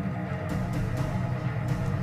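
Background music with a heavy, steady low end, with a few faint clicks over it about half a second in and near the end.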